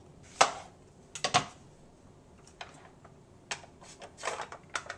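Kitchen knife chopping the ends off a zucchini on a cutting board: a sharp knock about half a second in and a quick double knock about a second later. Lighter clicks and taps follow as the zucchini and a plastic spiralizer are handled.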